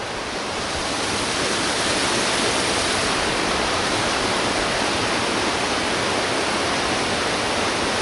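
Waterfall rushing, a steady, even noise of falling water.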